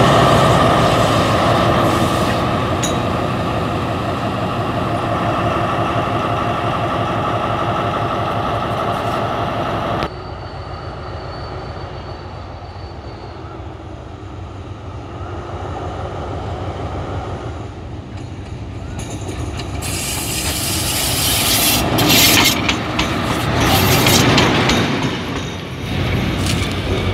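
ALSTHOM diesel-electric locomotive with an MTU engine running close by as it hauls loaded stone hopper wagons past, its engine and wheels loud and dense. About ten seconds in the sound cuts to a much quieter, distant engine, and bursts of rustling noise rise near the end.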